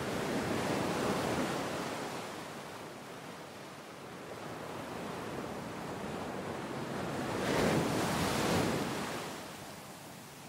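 A rushing wash of noise, like surf or wind, that swells about a second in, eases, then swells again more strongly around eight seconds in before fading away.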